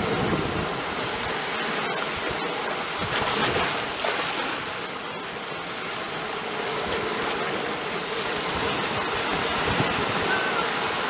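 Sea waves washing in: a continuous rush of water that swells gently about three seconds in, then eases back.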